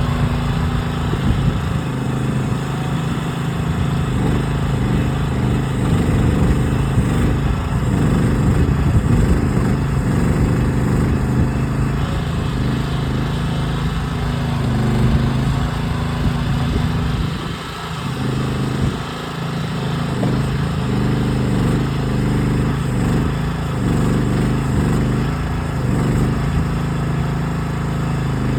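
Small gas engine of a Groundhog ZH12G mini excavator running steadily while the machine digs in rocky ground. There is a brief dip in loudness about two-thirds of the way through.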